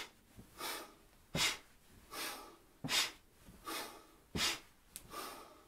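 A woman breathing hard in time with an exercise: four sharp, forceful breaths out, about one every one and a half seconds, each followed by a softer breath in. Each breath cycle goes with one lift and lowering of a knee and the opposite arm.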